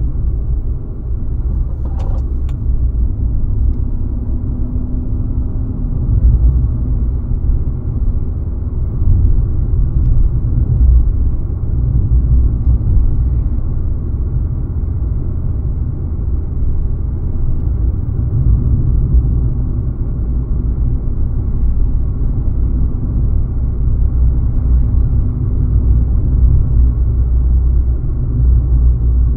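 A car driving along: steady low rumble of engine and road noise, with two faint clicks about two seconds in.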